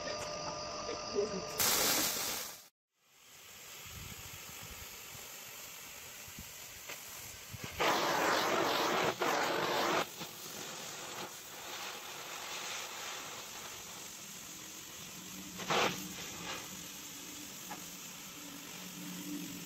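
Handheld plasma cutter hissing with its air jet as it cuts through steel plate. It is loudest for about two seconds in the middle, with a short sharp burst near the end.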